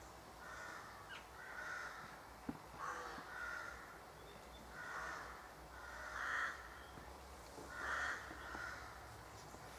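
Crows cawing, a run of separate caws roughly once a second, some in close pairs, loudest about six and eight seconds in.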